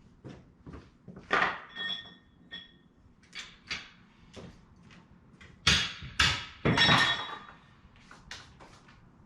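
Scattered clunks and knocks of heavy metal equipment being shifted around on a hard floor, with a brief metallic ring about two seconds in and the loudest bangs in a cluster around six to seven seconds in.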